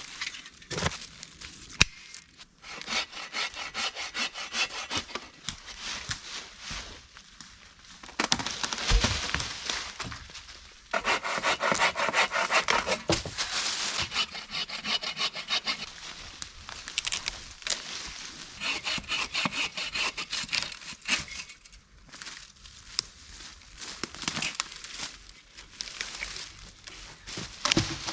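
Hand saw cutting through a tree trunk in repeated back-and-forth strokes, pausing briefly now and then.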